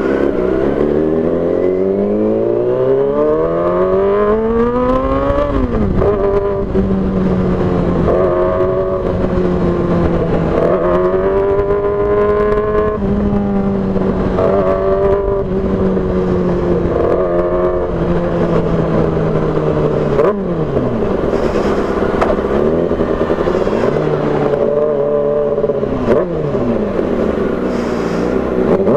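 Yamaha R6 inline-four with an SC Project exhaust, ridden hard: the revs climb steadily for about six seconds, drop sharply, then hold at a cruise with several brief dips and short rises. Wind noise runs underneath.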